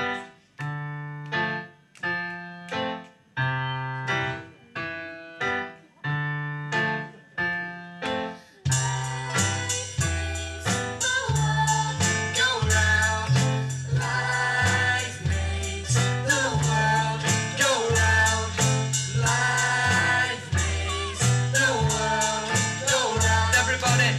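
Live band song: chords struck on a keyboard in steady, evenly spaced strokes, about one every three-quarters of a second, each dying away. About nine seconds in, the full band with drums and bass comes in, louder, with several voices singing together.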